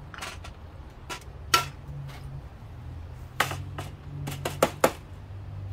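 Metal fork clinking and tapping against a stainless steel saucepan and a metal sheet tray while bismuth crystals are picked out of the molten bismuth: several sharp clicks, the loudest about a second and a half in and a quick pair near the end.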